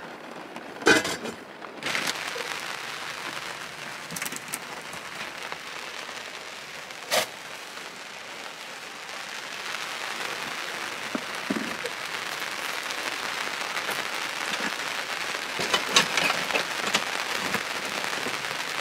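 Steady rain falling on an awning canopy, a little louder towards the end. A few sharp clinks of crockery being packed into a bag sound over it: one about a second in, one in the middle and a cluster near the end.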